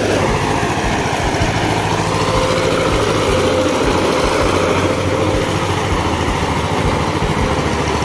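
Power tiller's single-cylinder diesel engine running steadily with an even beat, the machine being driven round over cut rice stalks to thresh the paddy.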